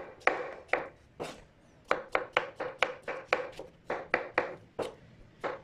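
Chef's knife dicing melon on a wooden cutting board: a run of sharp chopping knocks as the blade cuts through the flesh and hits the board, slower for the first second or so, then about four cuts a second.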